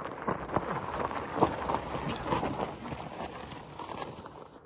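Fat tyres of an e-bike crunching over gravel and dirt as it rides close past, an irregular run of crunches and clicks that thins out toward the end.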